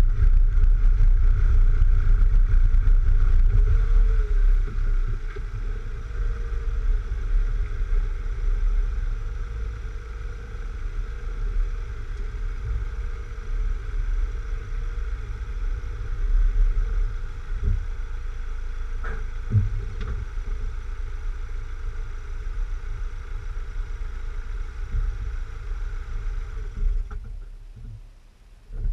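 Mk3 VW Golf running at low speed with a steady low rumble and wind noise on the microphone, a few sharp knocks a little past halfway. Near the end the running sound dies away as the car stops.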